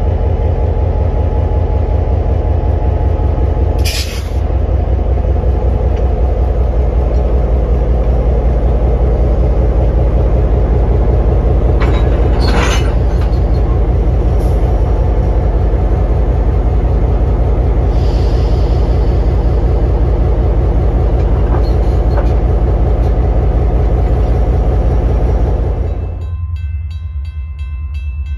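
Diesel locomotive engine running loudly close by as it backs onto a passenger coach, with a sharp clank about four seconds in and another near the middle, and a short hiss of air a few seconds later. Near the end the engine sound drops away and a railroad crossing bell rings with a steady, even beat.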